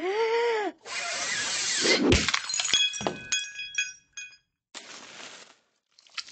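Cartoon sound effects of a cream pie hitting a cartoon cat in the face. A short rising-and-falling tone is followed by a loud rush of noise, a thud about two seconds in, and then a run of bright tinkling chime notes.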